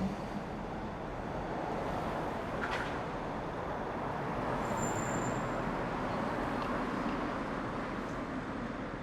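City road traffic: a steady wash of passing vehicles that swells a little in the middle, with a short high-pitched squeal about five seconds in.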